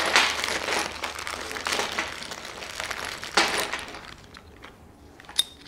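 Plastic bags crinkling as small welding-table accessory parts are handled and unwrapped, with a few light clicks near the end.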